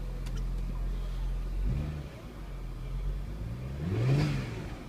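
2000 Audi S4's 2.7-litre twin-turbo V6 idling and revved with light blips of the throttle, the larger one about four seconds in, sounding rough when revving. The owner suspects a blown turbo; the engine is also overfilled with a couple of litres of oil.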